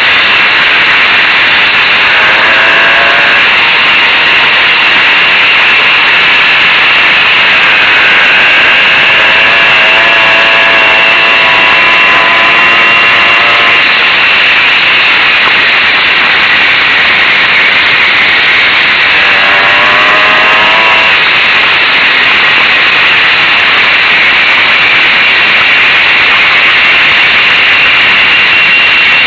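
Zündapp M50 Bergsteiger moped's 50 cc two-stroke single-cylinder engine running under way, under a loud, steady rushing noise. Its pitched engine note comes through clearly three times, about two seconds in, for several seconds in the middle, and again briefly about two-thirds of the way through.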